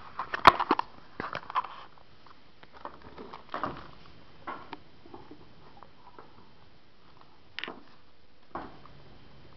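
Handling noises: a quick cluster of clicks, taps and rustles early on, with one sharp click the loudest, then single taps and rustles every second or so.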